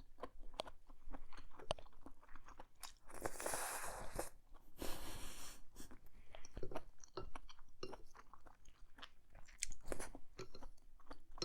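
Close-miked mouth sounds of a person chewing a mouthful of black bean noodles and mushrooms: wet smacks and clicks throughout, with two longer noisy stretches about three and five seconds in.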